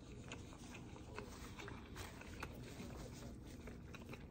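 Faint eating sounds: soft, scattered clicks and smacks of chewing over a low steady hum.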